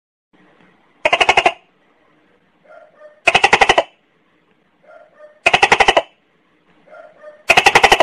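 A gecko calling: four rapid clicking rattles of about half a second each, some two seconds apart, each preceded by a softer short chirp.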